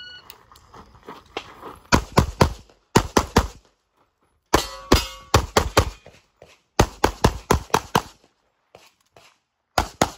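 A shot timer's brief start beep, then a competition handgun firing fast strings of two to seven shots with short pauses between strings, as the shooter moves through a stage. The first shot comes about two seconds after the beep.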